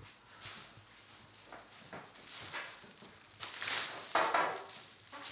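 Thin plastic carrier bag crinkling and rustling as it is carried, loudest about four seconds in.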